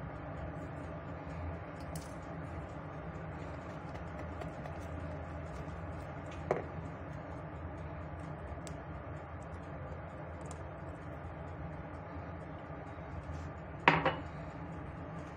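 Steady low hum in the room, with a light clink of a metal utensil against the mixing bowl about six and a half seconds in and a louder clatter of the whisk knocking the bowl near the end.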